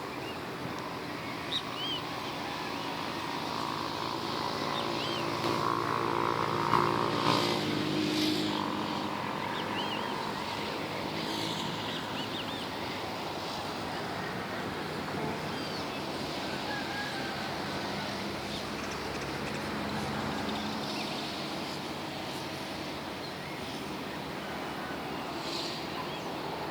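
City ambience: a steady hum of traffic, with one vehicle passing that swells and is loudest about seven seconds in. Small birds chirp now and then over it.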